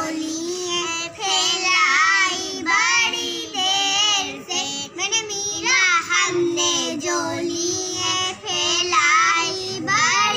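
Two young girls singing a song together, without instruments.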